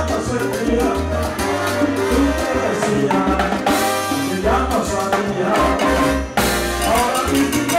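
Live salsa band playing: congas and timbales drive a steady bass line under trombone and trumpet lines. About six seconds in the music drops for a moment, then the full band hits back in.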